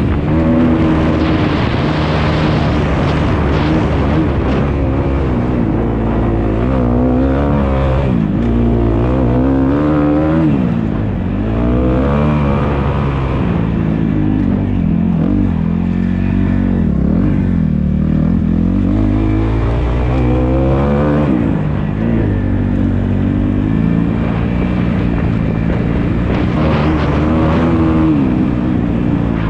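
Dirt bike engine being ridden hard, revving up and dropping back again and again as the throttle is opened and closed.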